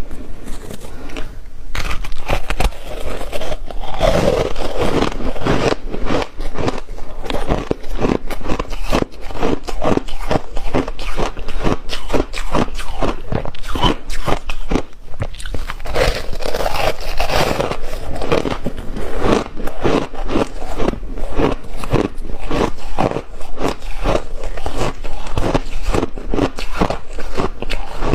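Close-up crunching of refrozen shaved ice being bitten and chewed, a dense run of sharp crackling crunches.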